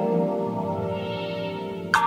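Soft background music of sustained, layered tones that fade slightly, with a sharp new attack near the end.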